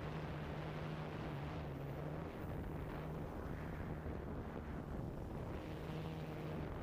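Steady rumbling noise with a low, even hum that drops out a little after two seconds in and comes back near the end.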